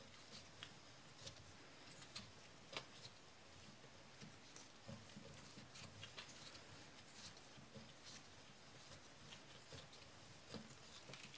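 Faint, irregular ticks and light scraping of a hand-turned barrel lug cutter shaving the steel bottom lugs of a 1911 pistol barrel through the frame, with one sharper click about three seconds in.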